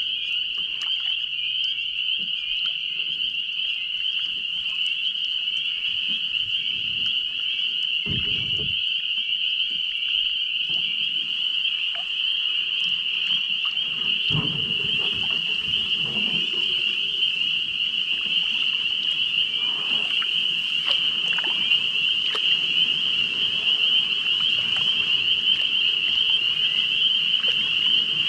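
A dense chorus of many frogs calling together in a steady, high-pitched trilling din, with two short low thumps about 8 and 14 seconds in.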